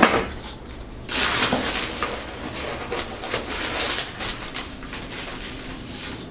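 Plastic bag of dry cement mix rustling and crinkling as a hand and cup reach in to scoop more powder, starting about a second in and easing off after a few seconds.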